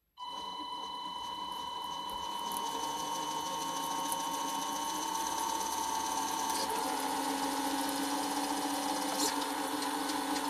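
Tamiya RC truck gearbox running with its casing off, its gears spun by the electric motor: a steady whirring gear whine that starts suddenly, its tone shifting about two-thirds of the way through.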